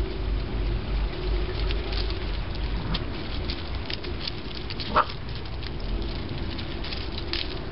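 Standard poodle puppies' paws scuffling and pattering on loose gravel as they romp, with one short yip about five seconds in.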